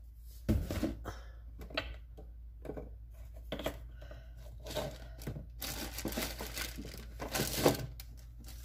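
Rummaging through kitchen supplies: irregular knocks and clicks as containers are moved about, with two longer bursts of rustling in the second half.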